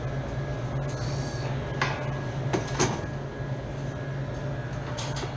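Steady low hum of running refrigeration machinery, with a faint high whine over it. A few short clicks and knocks of panels or doors being handled come about two seconds in, near three seconds and near the end.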